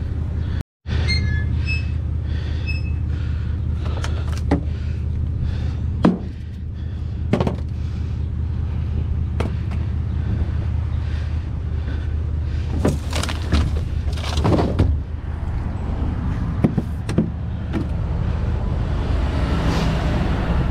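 GMC pickup truck's engine idling steadily, with scattered knocks and bumps over it.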